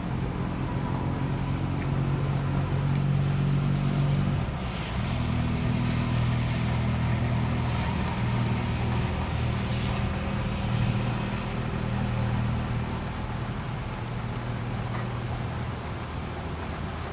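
Deep, continuous rolling rumble of thunder with a faint hiss of rain above it; the rumble shifts about four seconds in and eases slightly near the end.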